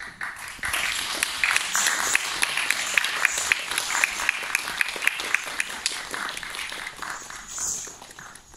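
Audience applauding, starting suddenly and thinning out near the end.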